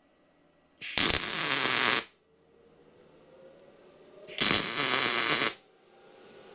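Miller MIG welder arc crackling in two short tack welds, each about a second long and about three and a half seconds apart.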